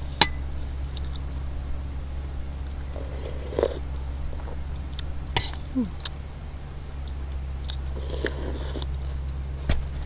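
Close-up eating sounds: chewing mouthfuls of beef noodle soup, with scattered sharp utensil clicks and short wet mouth noises over a steady low hum.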